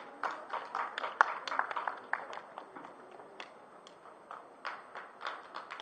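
Scattered hand claps from a small audience, quick and irregular for about two seconds, then thinning out to occasional claps.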